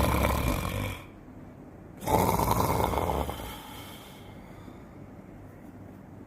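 Snoring: the end of one loud snore, then a second snore about two seconds in lasting over a second, with a steady low background noise between and after.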